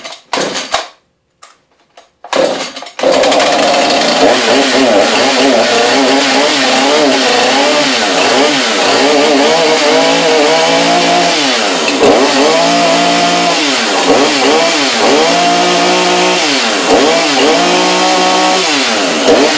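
Husqvarna 440 two-stroke chainsaw being pull-started on its first start out of the box: a few short sounds, then the engine catches about three seconds in and keeps running. Its pitch rises and falls over and over as the throttle is worked, dipping back several times; the saw starts readily.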